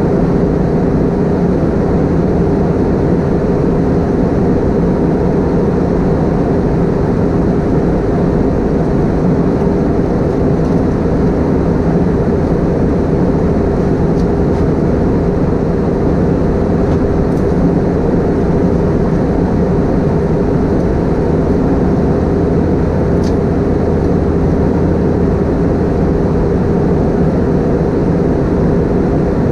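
Steady engine and airflow drone inside the cabin of an Airbus A320-232 with IAE V2527 turbofans, climbing out after takeoff, with a constant hum running through it.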